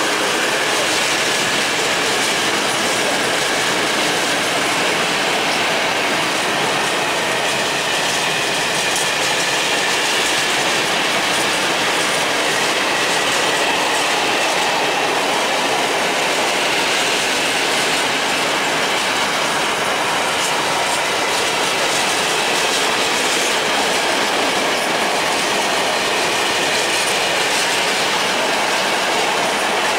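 Freight train of open coal gondola wagons rolling past close by: a steady, loud rumble and clatter of steel wheels on the rails.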